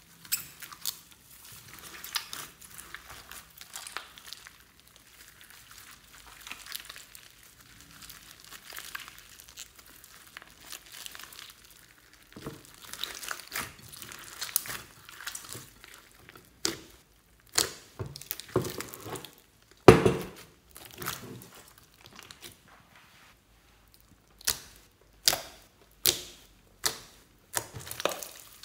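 Slime mixed with foam beads being kneaded and squeezed by hand, giving crinkly, crackling squelches. Near the end, as the slime is pressed flat with both palms, comes a run of sharp pops a little more than one a second.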